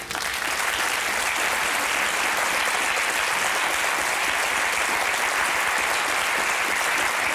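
Studio audience applauding, starting abruptly and holding at an even level.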